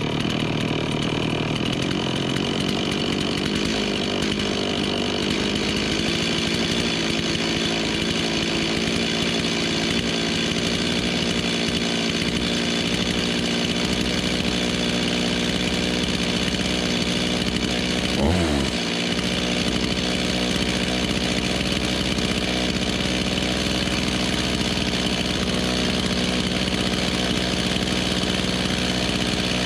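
Stihl two-stroke chainsaw idling steadily while its carburettor idle and low-speed screws are being adjusted to cure a lean-running condition. The engine note shifts slightly, and a brief falling sweep is heard about two-thirds of the way through.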